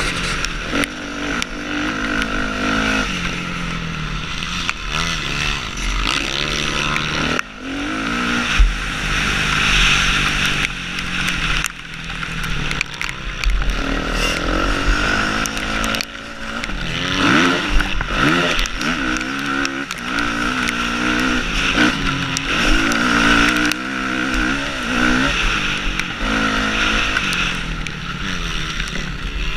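Motocross bike engine heard close up from the onboard camera, its revs climbing and dropping again and again as the rider accelerates down the straights and backs off for turns.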